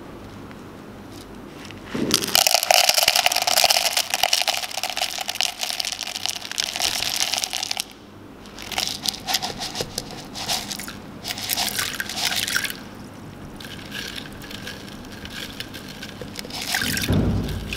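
Potassium hydroxide lye flakes poured into an empty plastic measuring jug: a dense, hissing rattle for about six seconds, then several shorter bursts of rattling as more flakes are shaken in. A dull low thud comes near the end.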